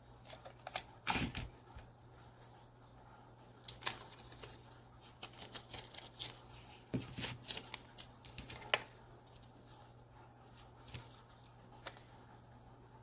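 Handling noises: scattered clicks, taps and rustles of small objects being handled, busiest about a second in and again from about four to nine seconds.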